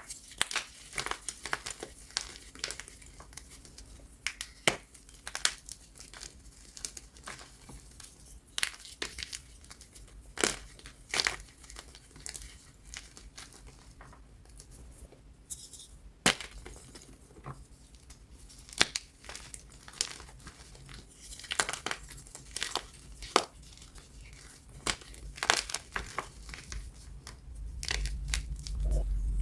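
Extra-crunchy BSN plain gym chalk, topped with baby powder, being crushed. It gives a dense, irregular run of sharp crunches and crackles.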